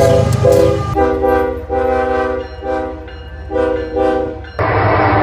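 Diesel freight locomotive's multi-chime air horn sounding a string of chord blasts, some longer and some shorter. At about four and a half seconds it cuts to the steady running of a passing locomotive's diesel engine.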